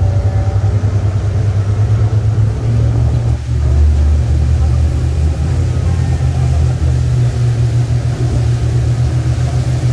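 Boat engine running steadily underway, a loud, deep, continuous drone.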